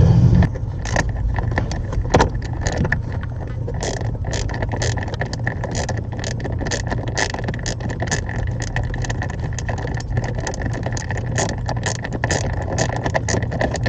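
Irregular small clicks and scrapes of a screw being worked out by hand from the blend door actuator under a car's dashboard, over a steady low hum.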